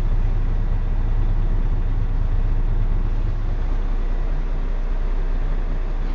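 Steady low drone of a Volvo B12BLE city bus's diesel engine and running gear, heard from inside the passenger cabin.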